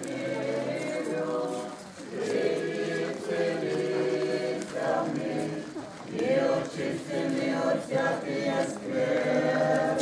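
A group of voices singing an unaccompanied Orthodox church hymn in long held phrases, with short breaths between them.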